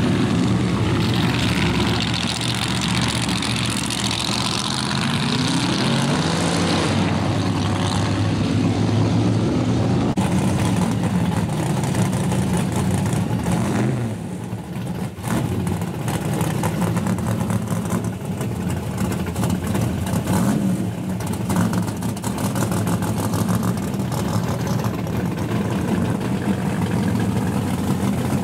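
Loud V8 muscle car engines running and revving as cars pull away, with the engine pitch rising and falling several times in the first half. About halfway through the sound changes abruptly to another car close by, idling and revving as it moves off.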